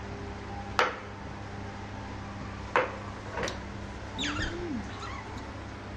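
Baby monkey calling: two short, sharp, high squeaks about two seconds apart, then a quick run of falling chirps about four seconds in, over a steady low hum.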